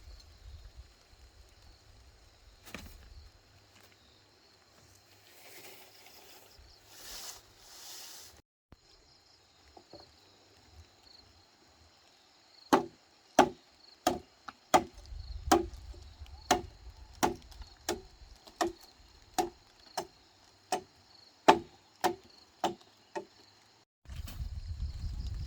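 A hand tool striking wood in a steady run of about sixteen sharp blows, roughly one and a half a second, starting about halfway through, like chopping or hammering. Insects buzz steadily in the background.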